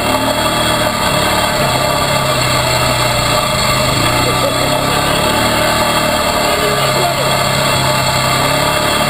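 Quad (ATV) engine running while riding along a dirt trail, loud and close. Its low note eases off a little in the middle and picks up again near the end.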